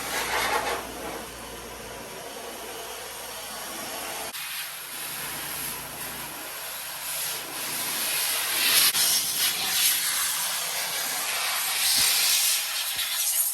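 Hose spraying deionised water over a car's bodywork: a steady hiss that surges and eases as the spray moves, with a low hum under it for the first few seconds.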